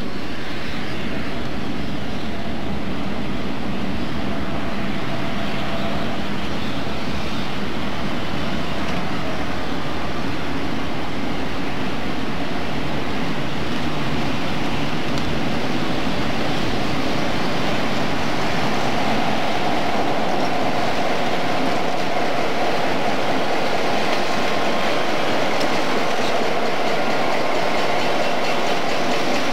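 Chicago Central & Pacific diesel locomotives approaching and passing close by, engines running steadily over rail noise. A tone in the engine sound grows stronger about two-thirds of the way through as the locomotives come alongside.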